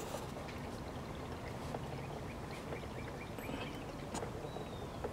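Coolant gurgling as the vacuum in the cooling system draws it through the refill hose, with a steady low hum, scattered small clicks and a run of small gurgles in the middle. The vacuum is nearly spent and the system almost full.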